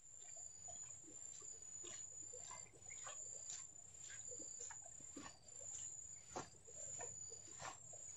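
Faint outdoor ambience: a steady high-pitched insect drone, with scattered short chirps and light ticks over it.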